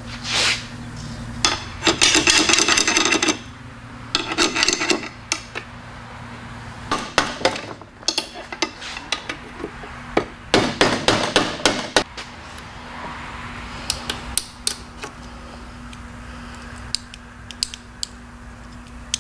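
Steel hand tools tapping and clattering against a TH350 automatic transmission's case and output shaft in several short bursts of rapid metallic clicks, the loudest about 2 s and 11 s in, with lighter scattered clicks near the end, as parts are knocked free at the tail end during teardown. A steady low hum runs underneath.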